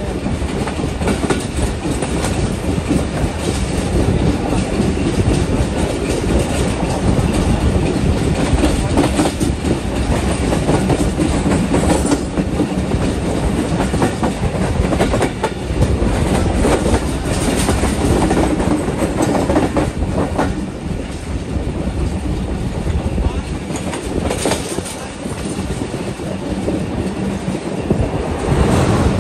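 Passenger train running at speed along the track, heard from on board a coach: a steady rumble of wheels on rails with clickety-clack clicks over the rail joints.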